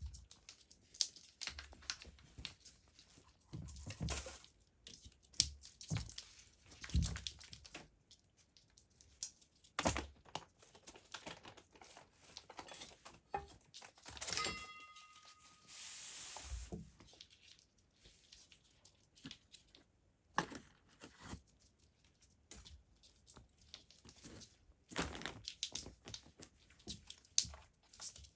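Irregular rustling, crinkling and light knocks, as of material being handled or scratched, with a brief high squeak about fourteen seconds in and a short hiss-like burst soon after.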